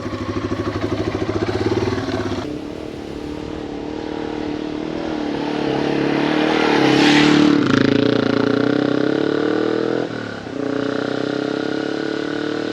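Yamaha TW200's single-cylinder four-stroke engine pulling the bike along, revving up in each gear, with the pitch dropping at gear changes about two and a half seconds in, near eight seconds and again near ten seconds. A rush of wind noise swells toward the middle.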